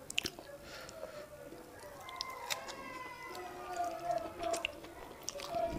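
Close-miked eating sounds: sharp wet mouth clicks and chewing of soft boiled yam and eggplant sauce eaten by hand. Under them runs a faint background of wavering, gliding tones.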